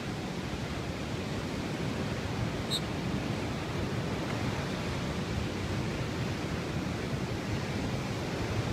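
Steady wash of ocean surf and wind, an even hiss with no birdsong standing out, and one brief faint high chirp about three seconds in.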